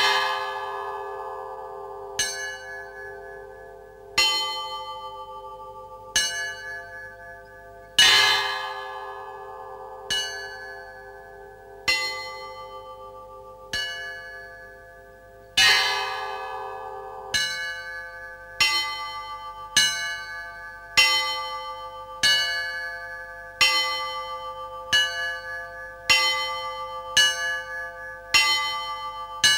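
Russian church bells rung by a single ringer, who pulls the clapper ropes by hand and foot. Each stroke rings on and fades. The strikes come about every two seconds, with a heavier stroke about every eight seconds, and quicken to roughly one a second in the second half.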